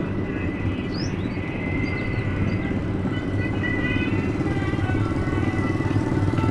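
A vehicle's engine running steadily with road noise, with a few short high chirps about one and two seconds in.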